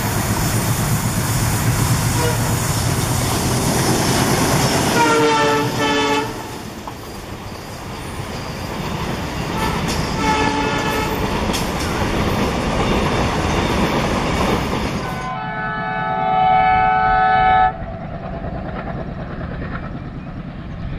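An Indian Railways WDG 3A diesel locomotive hauling a container train passes close by, its engine and the wagons' wheels rumbling steadily, with horn blasts about five seconds in and again, fainter, about ten seconds in. After a cut about fifteen seconds in, another WDG 3A's horn sounds once for about two seconds, followed by a quieter rumble.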